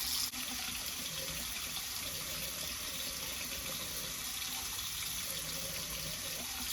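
Kohler Fairfax bathroom sink faucet running steadily into the basin with the hot side open, the water not yet hot and the faucet not yet hammering. A small click about a third of a second in.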